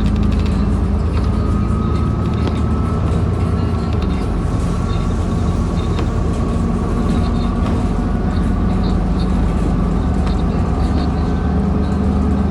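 Diesel bus engine and drivetrain running while the bus is under way, heard from inside the passenger saloon. A steady low drone, with a faint whine that rises slowly in pitch over the first few seconds.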